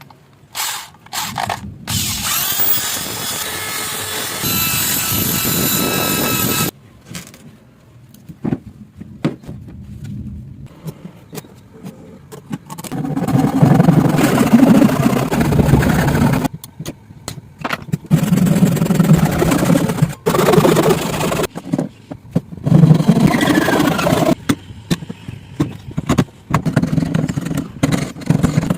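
Woodworking tool noise. About two seconds in, a motor spins up with a rising whine and runs steadily for several seconds. Later come several loud stretches of scraping and cutting on wood, broken by abrupt cuts.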